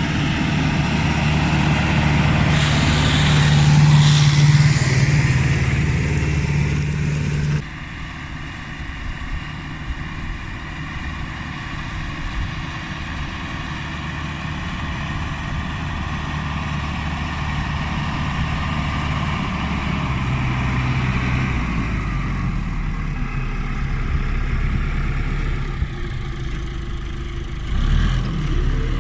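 Case CX80 tractor's diesel engine running steadily under load while pulling a four-furrow plough through heavy soil. About eight seconds in, the sound drops abruptly to a quieter, smoother engine note, with a short louder surge near the end.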